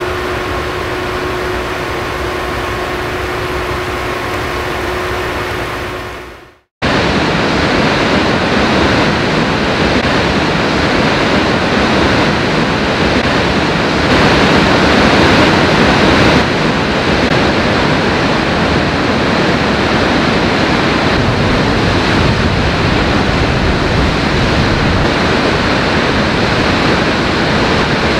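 Steady rush of falling water. For the first six seconds a fountain's jet splashes over a faint steady hum, and this fades out. About a second later the heavy, even rush of a large waterfall begins and holds.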